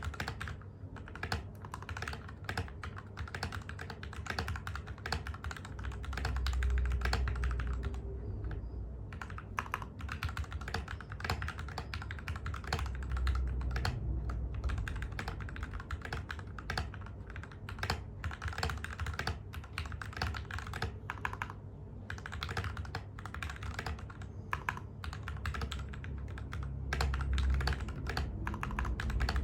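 Continuous fast typing on a TM680 mechanical keyboard with lubed Gateron Milky Black linear switches, ABS OEM-profile keycaps and foam in the case and under the plate: a dense, uneven stream of key clicks and bottom-outs, recorded through a phone's microphone.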